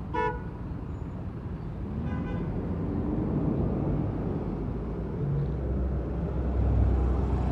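A 2009 NABI 40-LFW diesel-electric hybrid transit bus pulling away, a whine rising in pitch a couple of seconds in and a low rumble building near the end. Two short beeps sound about two seconds apart near the start.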